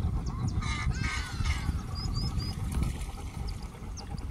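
Water lapping with a steady low rumble, a few bird calls about a second in, then short high chirps from small birds.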